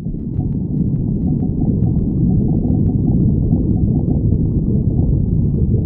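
Stomach growling: a continuous low rumble, with a scattering of faint clicks over the first three seconds.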